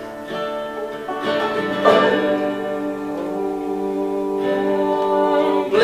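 Live acoustic string-band music with banjo and guitar picking. About two seconds in, a long held chord begins and sustains steadily.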